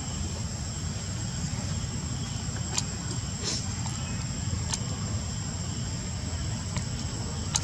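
Outdoor ambience: a steady high-pitched buzz of insects over a constant low rumble, with a few faint clicks about three, three and a half, five and seven and a half seconds in.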